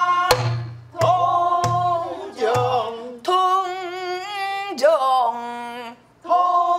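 A woman singing a pansori danga in traditional style, held notes with a wavering, sliding pitch, accompanied by a Korean barrel drum (buk). The drum is struck several times in the first three seconds and once more near the end.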